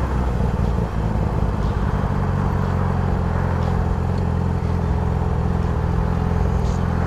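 Motorcycle engine running at a steady low pitch while riding slowly in traffic, with wind noise on the helmet microphone.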